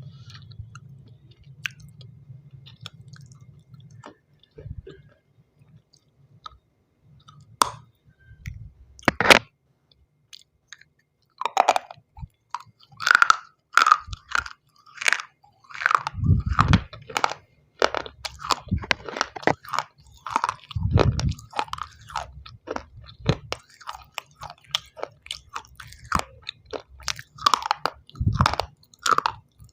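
Close-up crunching bites and chewing of pieces of white shell stone, an edible baked clay. A few isolated crunches at first, then a dense run of sharp, crisp crunches with some deeper thuds through the latter two thirds.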